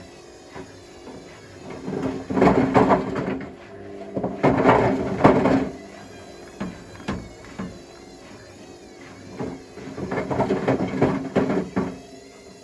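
Bricks tumbling and knocking inside the drum of a Hotpoint Smart Tech WMFUG742 washing machine on a wool-cycle rinse. They clatter in three bursts as the drum turns, with quieter pauses between.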